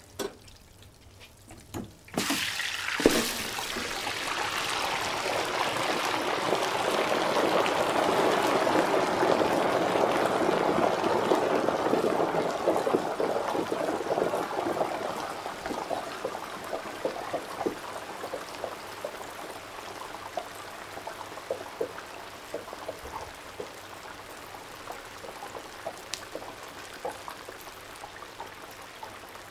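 Hot oil in a deep fryer sizzling: a dense crackling hiss starts suddenly about two seconds in, is loudest a few seconds later, then slowly dies down to lighter sizzling with scattered pops.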